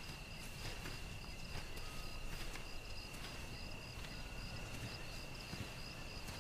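Crickets trilling in one continuous high note, a night-time field ambience. A few soft footsteps on grass in the first seconds.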